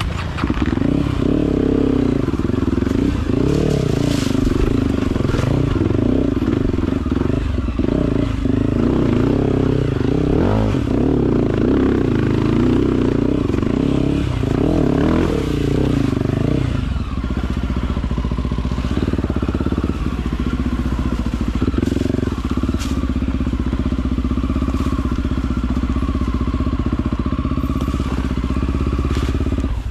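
Off-road trail motorcycle engine revving up and down under load, with a few sharp knocks. About two thirds of the way in it settles to a steadier, more even note.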